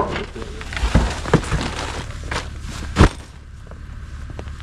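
Camping gear being handled at an SUV's open tailgate in snow: a few sharp thumps and knocks as bags are set down, the loudest about three seconds in, with footsteps and rustling in snow. A low steady rumble of wind on the microphone runs underneath.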